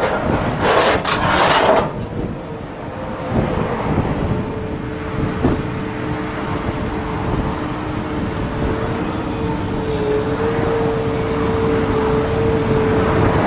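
Steel highway guardrail being sheared by an excavator-mounted Promove SC2200 scrap shear: loud crunching and grinding of metal for about the first two seconds. After that the excavator's engine and hydraulics run with a steady whine that rises slightly in pitch about ten seconds in, as the cut pieces are lifted.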